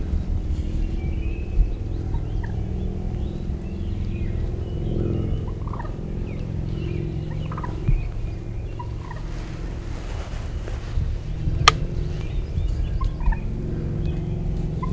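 Wild turkey calling over a steady low rumble, with short calls scattered through, and one sharp click about two-thirds of the way through.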